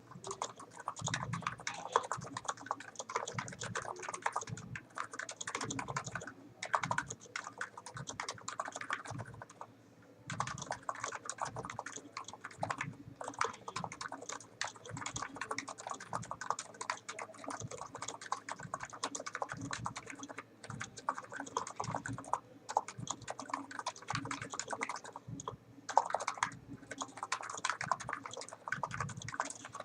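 Steady fast typing on a Niz Plum NANO 75 electro-capacitive keyboard with 45 g switches: a dense run of keystroke clacks, with brief pauses about a third of the way in and again near the end.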